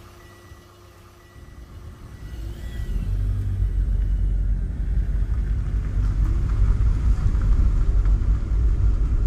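Car driving on a road: a low, steady rumble from the engine and tyres that builds up over the first three seconds or so and then holds.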